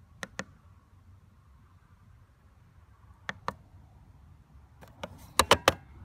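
Keypad buttons on a Husqvarna Automower 315 robotic mower clicking in two pairs, one near the start and one about three seconds in. Near the end the plastic keypad hatch is shut, with a quick cluster of louder knocks.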